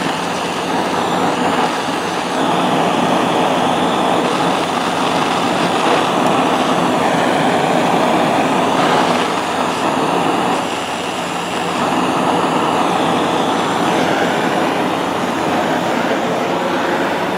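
Oxy-acetylene torch flame burning with a steady rushing hiss while it heats a steel hammer's claw. It grows louder about two seconds in and dips briefly about ten seconds in.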